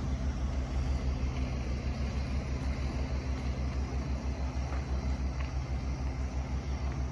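A large engine or motor running steadily: a low hum with a fast, even pulse that holds unchanged throughout.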